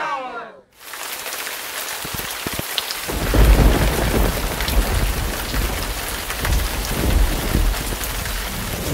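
Thunderstorm: a steady hiss of heavy rain, joined about three seconds in by low rumbling thunder.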